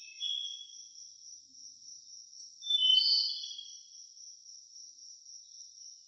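Steady high-pitched cricket trilling, with a few short, high chirping calls at the start and a louder cluster of them about three seconds in.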